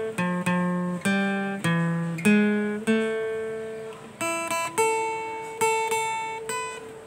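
Intro music: a melody of plucked acoustic guitar notes, each struck sharply and left to ring and fade.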